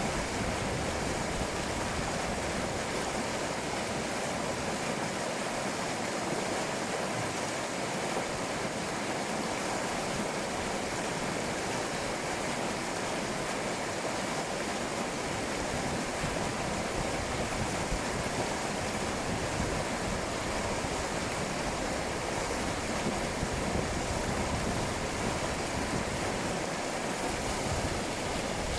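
Shallow river babbling over stones: a steady, unbroken rush of running water.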